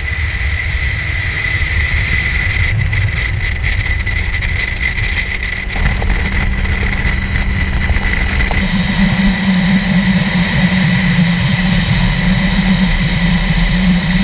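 Yamaha 115 outboard motor running at speed with the boat planing, under rushing wind and water noise; its low drone grows stronger about nine seconds in.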